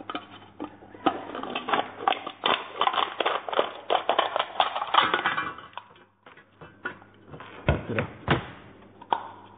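Scissors cutting through a thin aluminium drink can: a quick run of crackling snips and metal crinkling, then a few knocks near the end as the cut piece is handled.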